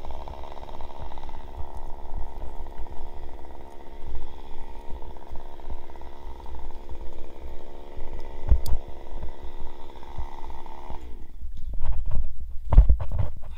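Chainsaw idling steadily, then cutting out about eleven seconds in. Low knocks and wind rumble on the microphone throughout, the loudest near the end.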